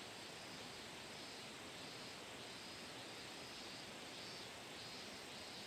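Faint insects chirping in a slow, even pulsing rhythm, with a thin steady high drone beneath, over quiet outdoor background noise.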